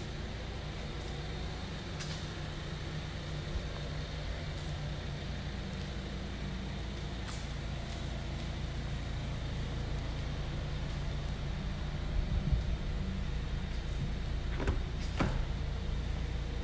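Steady low hum in a large room, with faint handling noises. About a second before the end, two sharp clicks come close together as the Audi A3 Sportback's door is unlatched and swung open.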